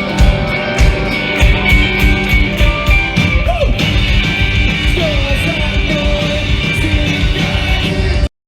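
Live punk band playing loudly: drum kit, electric guitar and a singing voice. The sound cuts off abruptly near the end.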